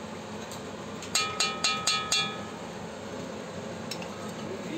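Five quick knocks, about four a second, each with a short metallic ring, as a wooden spoon taps against the edge of a cast-iron pan, over a steady low hiss from the simmering pan.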